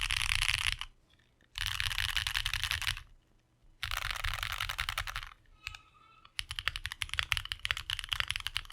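Typing on a custom Portal 65% mechanical keyboard with lubed AEBoards Snag switches and ePBT ABS keycaps. Three fast bursts of keystrokes about a second long, with short pauses between them, give way about six and a half seconds in to steadier, separate keystrokes.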